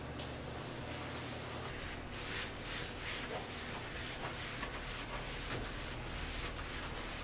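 Cloth rubbing across a glass cooktop in quick back-and-forth wiping strokes. The strokes start about two seconds in and come about three a second.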